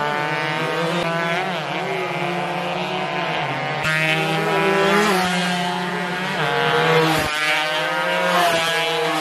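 Underbone racing motorcycles revving hard as they ride past. The engine pitch climbs and falls again and again as the bikes accelerate and shift, with more than one engine heard at once.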